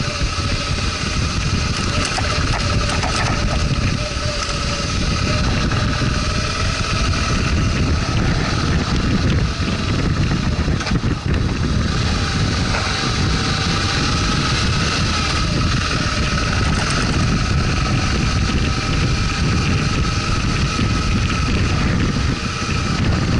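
Motorcycle engine running steadily while riding a dirt track, with heavy wind noise on the microphone and a few brief knocks from bumps.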